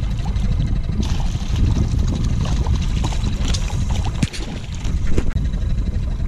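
Northern pike thrashing and splashing at the water's surface beside an aluminium boat as it is reeled in, with irregular splashes and crackles over a steady low rumble.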